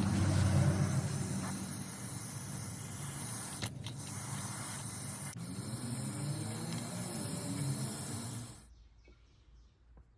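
Aerosol carburetor cleaner hissing as it is sprayed through the carburetor's passages to flush out old gummed fuel, in one long blast that cuts off near the end.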